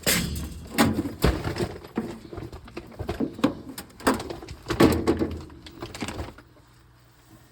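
Irregular knocks, clunks and rattles of hands working at the furnace cabinet for about six seconds, then a faint steady hum.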